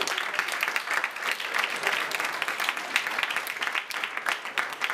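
Small audience applauding, with many hands clapping in a dense, steady patter.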